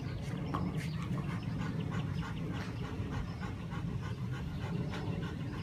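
A young Alaskan Malamute panting steadily with its tongue out, cooling itself in the heat.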